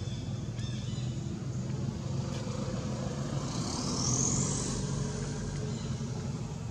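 A motor engine running steadily in the background, with a brief high rising squeal about three and a half seconds in.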